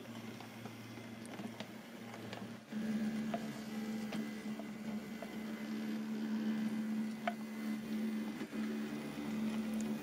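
0 gauge model steam locomotive's electric motor and gearbox running as it moves along the track: a steady hum that steps up louder and higher about a third of the way in, with a few faint clicks.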